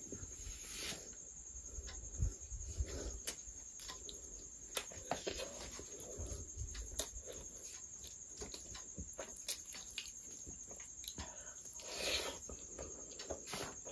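Close-miked eating sounds: chewing, lip smacking and sharp wet mouth clicks from someone eating rice and curry by hand. Soft squelching comes as fingers mix rice with egg curry on the plate. A faint, steady high whine sits underneath.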